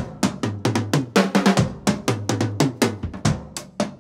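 Music: a fast, busy drum beat of rapid snare and kick hits over a low bass line.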